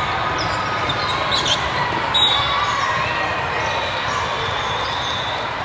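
Busy indoor volleyball hall: a steady din of many voices from players and spectators calling and chattering, with two sharp knocks, such as a volleyball being hit or bounced, about a second and a half and two seconds in.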